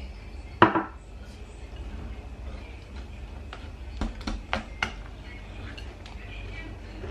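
A wire whisk knocking and clinking against a ceramic mixing bowl while cream is whisked into cake batter. There is one sharp loud clink just over half a second in, then a quick run of several lighter clinks around four to five seconds in.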